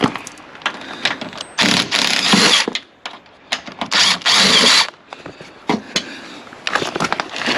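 An impact wrench runs in two bursts of about a second each, with small clicks and knocks of parts being handled between them.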